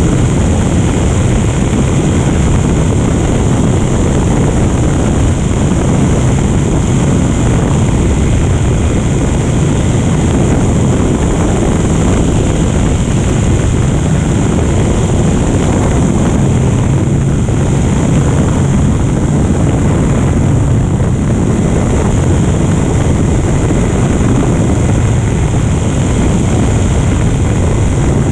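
Light propeller aircraft in flight: a steady drone of engine, propeller and rushing air at an unchanging level.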